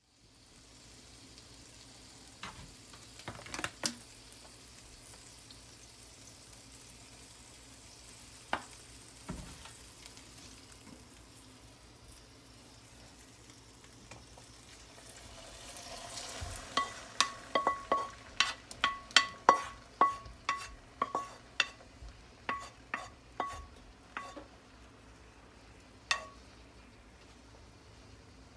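Egg batter with chopped onion and bell pepper sizzling in a frying pan, a steady soft hiss with a few clicks. In the second half, a quick run of sharp ringing clicks, about two to three a second, as a utensil scrapes and knocks the mixing bowl while the batter is poured into the pan.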